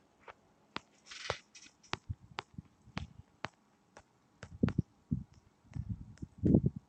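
Irregular light clicks and taps with a few dull thumps in the second half: fingers tapping and handling a smartphone close to its own microphone.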